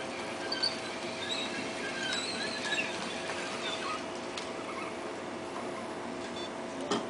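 Small tracked robot's electric drive motors running with a steady hum, with scattered high squeaks in the first few seconds and a sharp click near the end.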